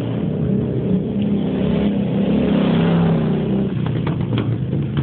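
Harley-Davidson motorcycle's V-twin engine running along the track, growing louder to a peak about three seconds in, then dropping away. A few sharp clicks near the end.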